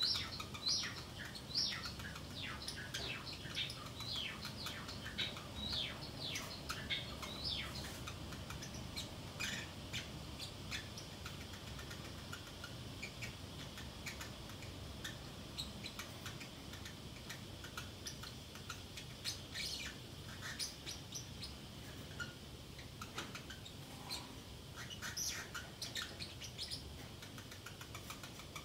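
Pacific parrotlet chattering to itself in short, high chirps: quick runs of them in the first several seconds, then scattered ones, with a few more clusters later on.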